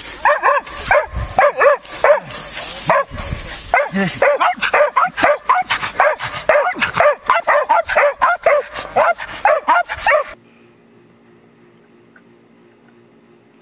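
Dogs barking and yapping rapidly and excitedly at a wild boar, many short barks a second. The barking cuts off suddenly about ten seconds in, leaving only a faint low hum.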